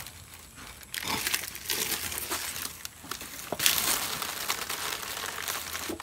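Dry leaves crinkling and crackling as they are pulled off the top of a concrete beehive, starting about a second in.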